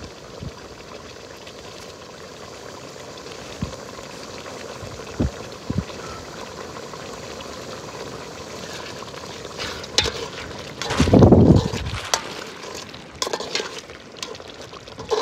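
Pork curry simmering in an aluminium pot over a wood fire, a steady bubbling hiss. A few sharp clicks of a metal ladle against the pot come in the second half, with a louder rough burst of noise about eleven seconds in.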